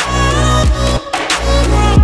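Background pop song with a strong bass line.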